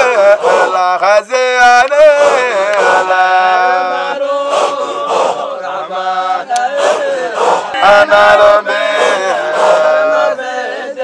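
Group of men chanting a Sufi dhikr of the Qadiriyya order in unison, in long held notes, with short sharp accents marking the rhythm.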